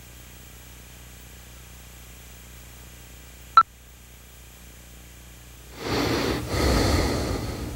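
Faint tape hiss and hum, broken by a single sharp click about three and a half seconds in, then a sleeping man snoring: two long snores near the end with a short break between them.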